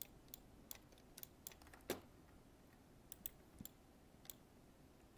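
Quiet, sharp clicks of a computer mouse, about a dozen at uneven intervals over faint room hiss, the sharpest about two seconds in.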